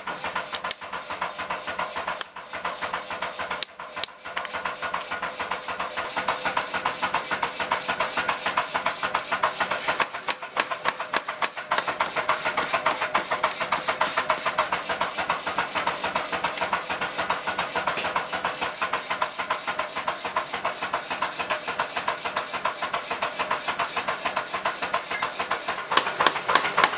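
Mechanical power hammer rapidly pounding a red-hot kanna (Japanese plane) blade held in tongs, an even run of blows over a steady hum, with brief pauses about two, four and ten seconds in.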